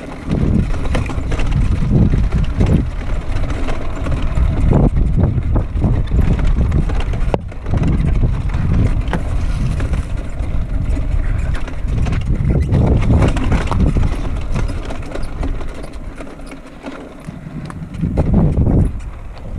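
Yamaha YZ85 85cc single-cylinder two-stroke dirt bike being ridden, its engine mixed with heavy wind buffeting on the microphone. It eases off for a moment near the end, then picks up again.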